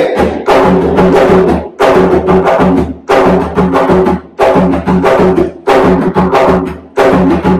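Low-toned bomba barrel drum (buleador) played by hand in the cuembé rhythm: a repeating pattern of ringing open strokes that comes round about every 1.3 seconds.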